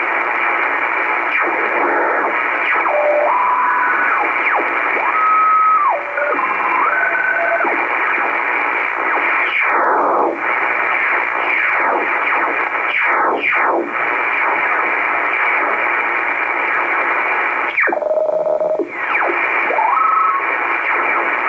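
Shortwave receiver in upper-sideband mode being tuned steadily up through the 6.3–6.5 MHz utility and maritime stations. A steady hiss of static runs throughout, with carriers coming through as whistling tones that sweep down in pitch, and short steady tones where signals sit.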